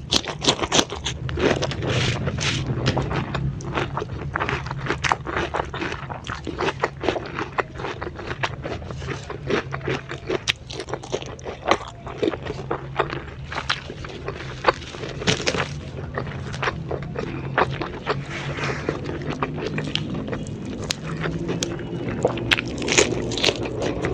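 Close-miked eating: crunchy bites into raw vegetables and chewing, with many irregular sharp crackles throughout, over a steady low hum.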